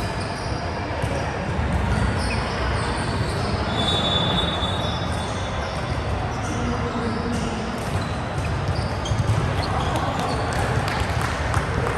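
Volleyball game in play: scattered ball strikes and bounces over a continuous background of indistinct players' voices.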